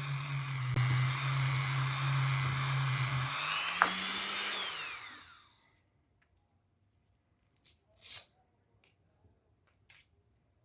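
Dremel rotary tool running with a hook-and-loop sanding pad on the work, a steady motor hum under the sanding noise. About three and a half seconds in its pitch rises briefly, then it winds down and stops about five seconds in, followed by a few faint clicks.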